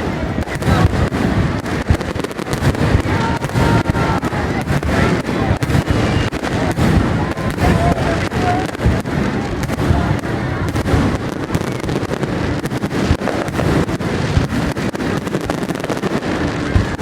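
Fireworks display going off: a dense, unbroken run of bangs and crackles with no pause.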